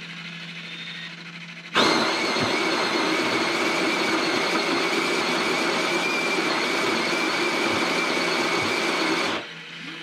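Spinn coffee maker's built-in grinder grinding coffee beans at the start of a grind-and-brew cycle. It starts abruptly about two seconds in, runs evenly for about seven and a half seconds and stops just before the end, with a faint low hum before and after it.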